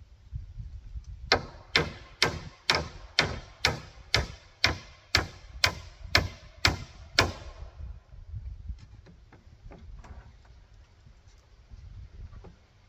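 Hammer striking a wooden roof rafter, driving a nail: about thirteen even blows, roughly two a second, stopping about seven seconds in, followed by a few light taps.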